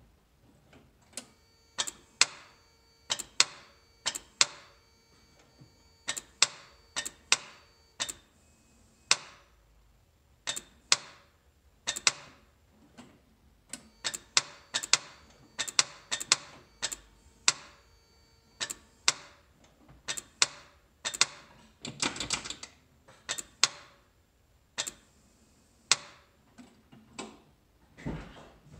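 Starter of a 1991 Toyota 4Runner's 22RE engine clicking each time the key is turned, without the engine cranking or starting: the click-no-start fault. The single sharp clicks come at irregular intervals, about one to two a second, with a brief rapid chatter of clicks a little past two-thirds through.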